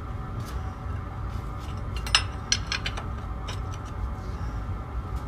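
A few sharp metallic clinks and taps of metal parts or tools being handled, clustered in the middle, the loudest about two seconds in, over a steady low rumble.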